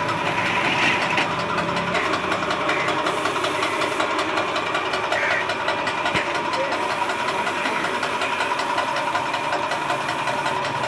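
Piston air compressor running steadily with a knocking chug, under the steady hiss of a compressed-air spray gun spraying paint.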